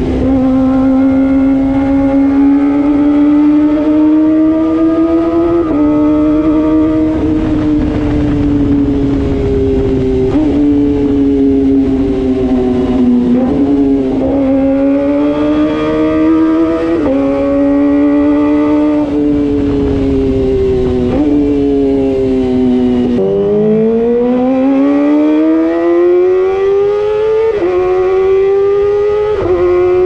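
Kawasaki ZX-25R inline-four engine through an aftermarket Pro Race exhaust, heard close to the exhaust tip while riding. The high-pitched exhaust note rises and falls with the revs and steps suddenly in pitch at several gear changes. About three quarters of the way through, the revs dip and then climb steadily for several seconds.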